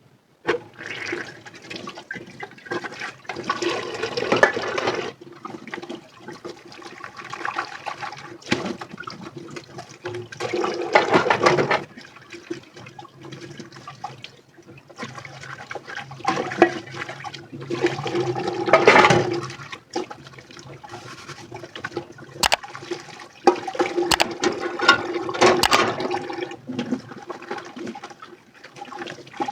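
Water running and splashing in a kitchen sink during dishwashing, swelling and easing every few seconds, with a few sharp clinks of dishes near the end.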